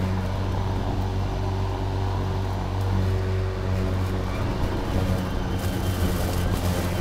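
EGO Power+ LM2135SP 56 V battery self-propelled lawn mower running under load, cutting grass: a steady low hum of the electric motor and spinning blade over a hiss of cut grass.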